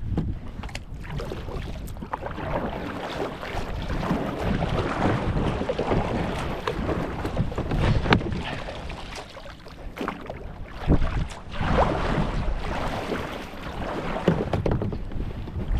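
Kayak paddled through choppy water in strong wind: paddle splashes and water sloshing against the hull, with wind rumbling on the microphone and a couple of sharp knocks.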